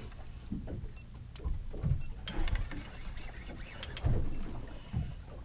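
Fishing reel being wound in under heavy load while a hooked conger eel is played on a bent boat rod, with scattered clicks and several low thumps.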